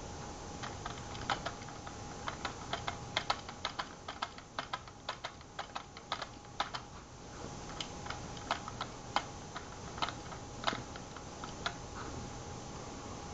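Rapid, irregular light clicks and taps, several a second, sounding like keys being pressed; they thin out after about eight seconds. A faint steady tone runs underneath.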